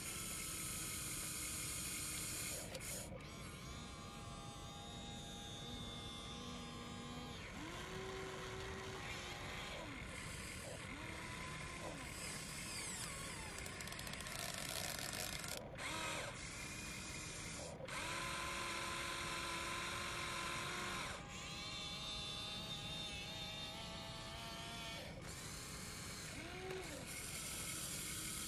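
Electric motors of a Huina RC excavator whining as the boom, arm, bucket and turntable are driven in turn, the pitch stepping and briefly rising and falling each time a motor starts or stops.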